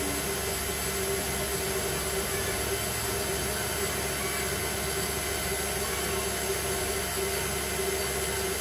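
KitchenAid Artisan stand mixer running steadily, whipping egg whites into meringue: an even motor hum with a steady whine.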